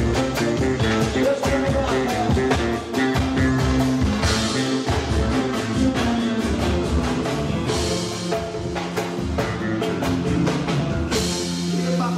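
A live band playing an instrumental passage on drum kit, bass and guitar, with a steady beat and cymbal crashes about every three and a half seconds.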